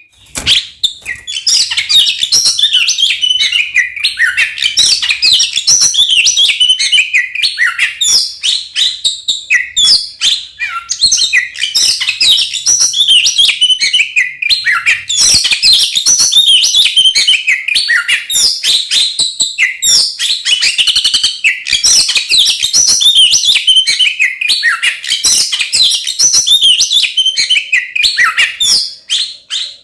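Oriental magpie-robin (kacer) singing loudly and almost without a break, a rapid run of varied whistles, trills and chatter.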